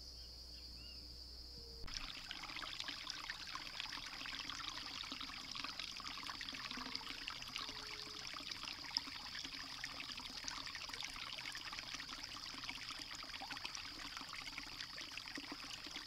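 Shallow rocky creek trickling and splashing over stones, the flow noise coming in about two seconds in and then running steadily.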